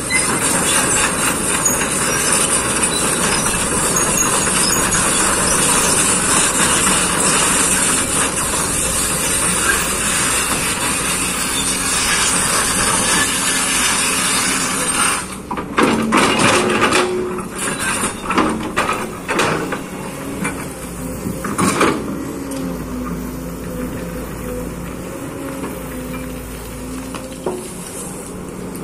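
Kobelco excavator working: its engine running under a steady loud hiss, then a run of clanks and knocks about halfway through, after which it runs more evenly.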